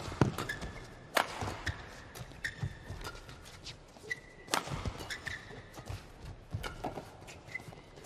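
A badminton doubles rally: rackets striking the shuttlecock in quick exchanges, the hardest hits near the start, about a second in and about four and a half seconds in, with court shoes squeaking and feet thudding on the court between shots.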